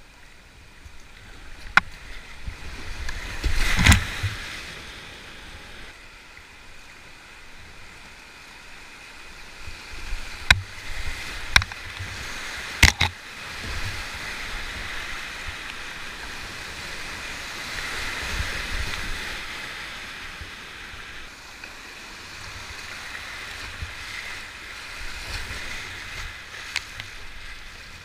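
Whitewater rapids rushing around a kayak, heard from on board, swelling in the middle as the boat runs down a foaming chute. Several sharp knocks and splashes cut through, the loudest about four seconds and thirteen seconds in.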